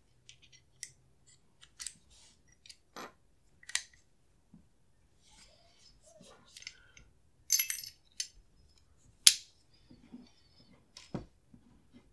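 Small metal clicks and clinks of an AR-15-pattern chrome bolt carrier group being reassembled by hand, as the bolt is seated in the carrier and the firing pin is fitted. The clicks come irregularly, with a cluster about seven and a half seconds in and the sharpest click a little after nine seconds.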